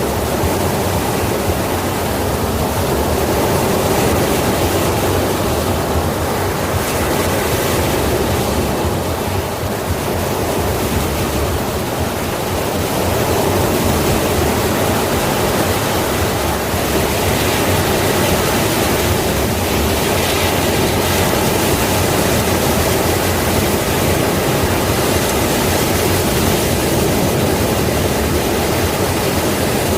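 Sea waves breaking as a continuous, steady rush of surf.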